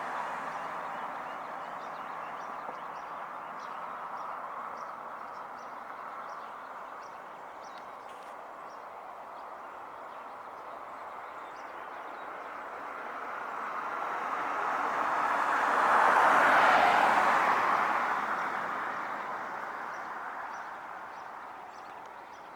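Road traffic: a passing vehicle's tyre and engine noise swells over several seconds to a peak about two thirds of the way in, then fades away, after an earlier vehicle fades out at the start. Faint high ticks repeat about twice a second.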